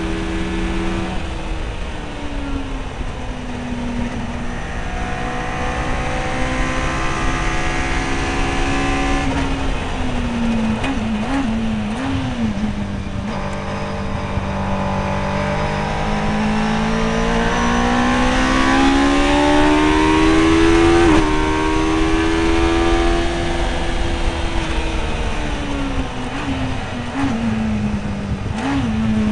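MK Indy kit car's engine heard from the open cockpit on track, the revs climbing under acceleration and falling away under braking. Quick throttle blips on downshifts come about eleven seconds in and again near the end, over a steady rush of wind and road noise.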